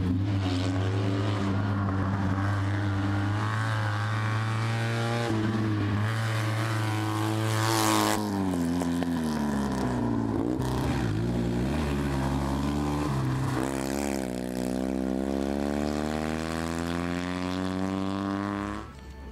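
Fiat 126p rally car's air-cooled two-cylinder engine driven hard, its pitch climbing under full throttle. About eight seconds in the revs drop away sharply as the car brakes and slows for a corner, then the engine climbs steadily again as it accelerates out, until the sound cuts off near the end.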